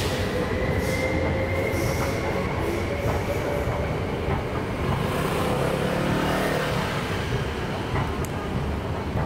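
Steady low vehicle rumble with faint, drawn-out whining tones that drift slowly in pitch, and a few sharp ticks near the end.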